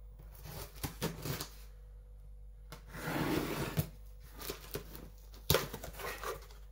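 Cardboard shipping box and its packing being handled and opened: rubbing and scraping of card with a few light clicks, then a sharp knock about five and a half seconds in.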